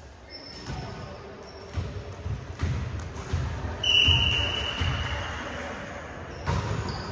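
Volleyball bouncing on a hardwood gym floor in a few thuds, with one long referee's whistle blast about four seconds in, signalling the serve.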